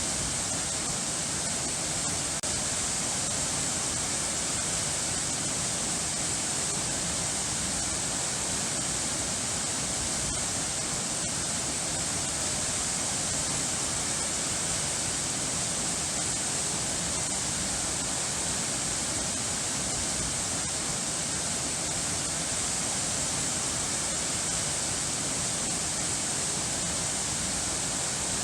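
Falling water, like a waterfall or fast stream, rushing steadily and evenly without change, with a strong hiss in the high end.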